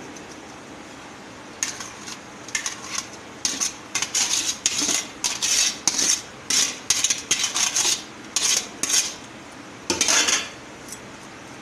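A white dish scraping and knocking against a metal cooking pot in a run of short strokes as cooked rice is tipped and spread in a layer. The strokes start about one and a half seconds in and stop a little after ten seconds.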